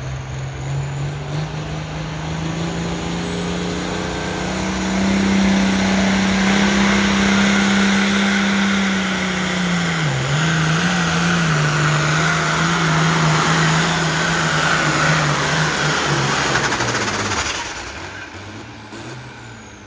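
Turbocharged International diesel pulling tractor at full throttle, dragging a weight-transfer sled. The engine note climbs about four seconds in, wavers around ten seconds, and falls away near the end as the pull finishes.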